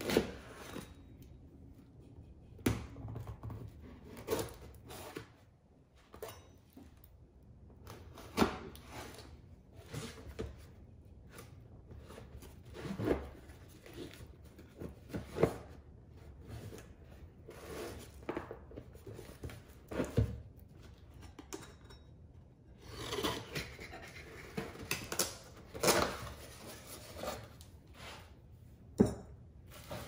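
A knife scraping and slicing through plastic wrap and tape on a cardboard box, with irregular knocks, rubbing and rustling as the box is handled and turned. Near the end there is a denser run of rustling and scraping as the box is opened.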